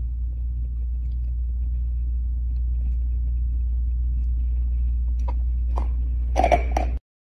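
A steady low rumble, with a few sharp clicks and crunches near the end as a dog chews on a chew stick.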